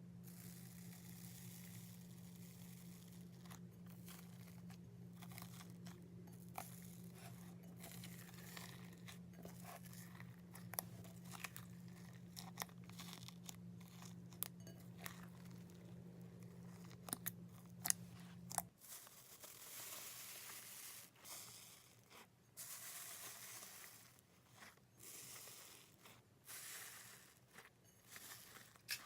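Faint crunchy, crackling sounds of slime being squeezed and poked, with scattered sharp clicks and pops. A low hum runs underneath and cuts off about two-thirds of the way through.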